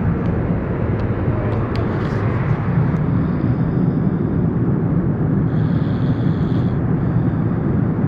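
Steady drone of an airliner's engines and airflow heard inside the passenger cabin, with a few faint clicks in the first couple of seconds.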